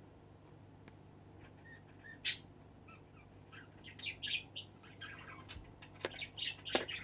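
A bird chirping: short high chirps, one about two seconds in and a busier run of them from about four seconds on, with a couple of sharp clicks near the end.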